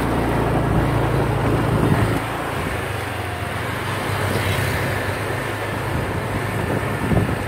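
Small motor scooter engines running, with one scooter passing close by about midway.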